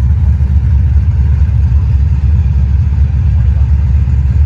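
Car engine idling with a steady, deep low rumble.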